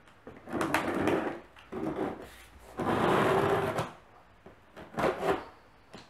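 Scissors slitting the packing tape along the top of a cardboard box, in about four scraping strokes, the longest lasting about a second, some three seconds in.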